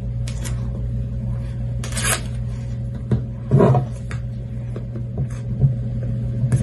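Cardboard iPhone box being handled and opened: short rustling scrapes of paper and cardboard about two seconds in and again a second and a half later, with a few light clicks, over a steady low hum.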